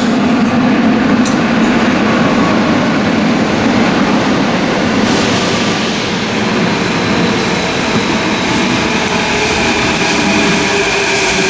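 Athens metro train approaching in the underground station, a loud continuous rumble filling the platform, with a steady high whine coming in near the end as it arrives.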